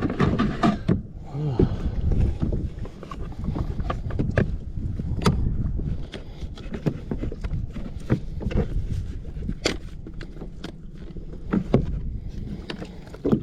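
Wind rumbling on the microphone aboard a fishing kayak, with scattered knocks and clicks from handling on the boat.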